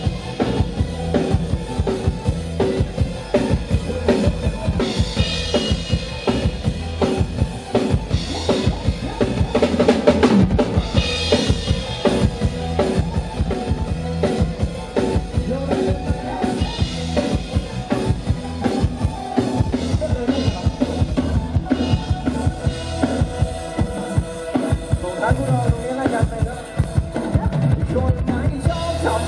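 Live band playing a loud instrumental passage through a Thai rot hae sound truck's big speaker stacks, led by a drum kit with steady bass drum and snare over bass guitar and keyboard.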